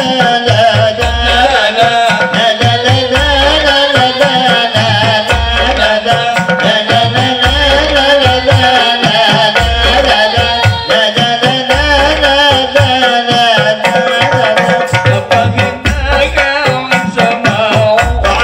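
A group of men singing to hand-played frame drums (rebana) and tambourines. Deep drum strokes repeat in a steady pattern under a wavering, ornamented vocal line.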